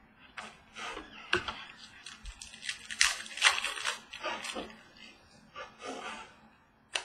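Trading cards and their packaging being handled: irregular rustling and sliding with light clicks, busiest about three seconds in.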